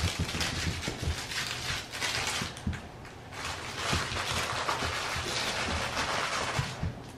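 Crinkle-paper puppy toy crackling and rustling as French Bulldog puppies bite and tug at it, with a short lull about two and a half seconds in.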